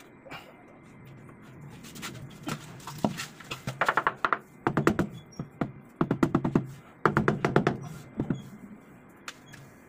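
Rubber mallet tapping a ceramic wall tile to bed it into the adhesive: four quick bursts of rapid taps, about a second apart, in the second half.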